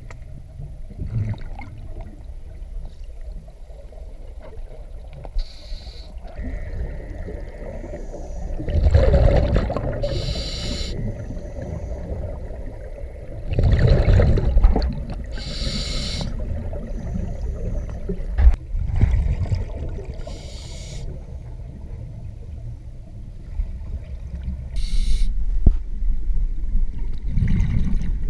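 Scuba diver breathing through a regulator underwater: a hiss on each inhale and loud bursts of exhaled bubbles every few seconds, over a steady low underwater rumble.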